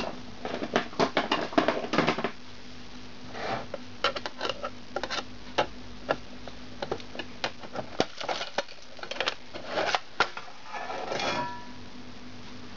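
Sheet-metal cover of a DVD-RW drive being handled and pulled off the chassis: a run of metal clicks and clinks, then scattered knocks. About eleven seconds in there is a short scraping rustle as the cover slides free.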